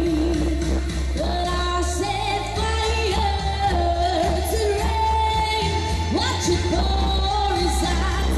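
A pop song sung live over a backing track with a steady bass line; the voice carries a long, sustained melody.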